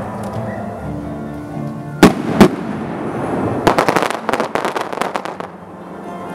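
Aerial fireworks: two loud shell bursts about half a second apart, two seconds in, then a rapid run of sharp crackling pops for nearly two seconds as the red stars burst.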